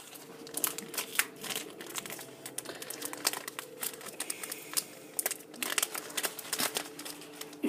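Foil wrapper of a Pokémon card booster pack crinkling and tearing as it is opened by hand, a dense run of crackles.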